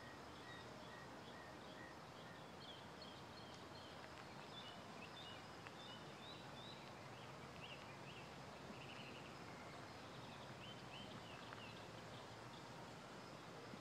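Quiet outdoor ambience with faint, scattered chirps of small birds, including a short run of evenly spaced notes near the start.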